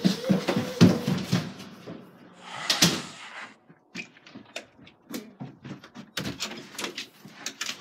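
A short vocal cry over thumps of hurried movement, then a string of sharp clicks and knocks from a storm door and a front-door handle being worked open.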